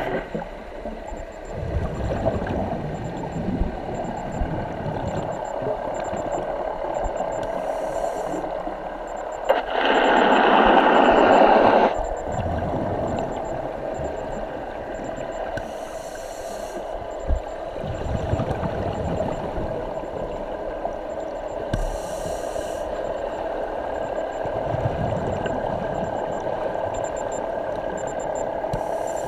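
Underwater sound of a scuba diver breathing through a regulator: a steady rush of water noise, with a louder rush of exhaled bubbles lasting about two seconds around ten seconds in, and short hisses every six seconds or so.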